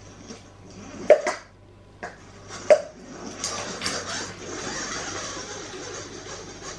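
A Sphero BB-8 toy robot ball clacking twice, sharply, as a pug knocks it about on a hard floor, with lighter knocks between. From about halfway through, a steady rolling noise as the ball moves across the floor.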